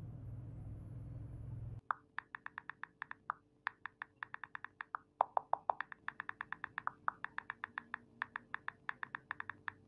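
Low steady room hum, then, from about two seconds in, a smartphone's keyboard clicking as a message is typed on the touchscreen: quick short taps, about five a second, with a few brief pauses.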